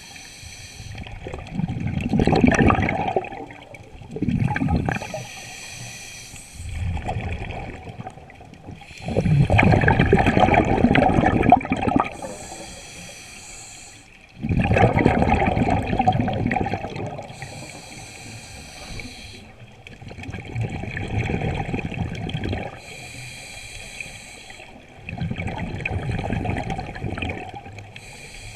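Scuba diver breathing through a regulator underwater: about six breaths, each a short hissing inhale followed by a louder rush of exhaled bubbles.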